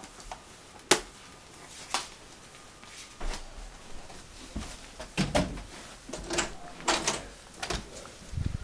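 Household movement noises: two sharp knocks in the first two seconds, then irregular thumps, rustles and footsteps as a person gets up from a wooden chair and walks out through a doorway.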